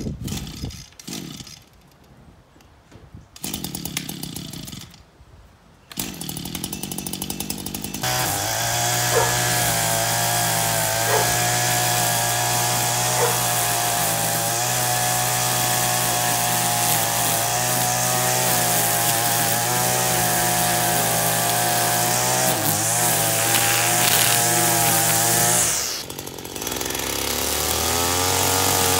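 Echo two-stroke string trimmer being pull-started: several short pulls and sputters, catching about eight seconds in. It then runs steadily at high speed while cutting grass. Near the end the engine briefly drops off and comes back up.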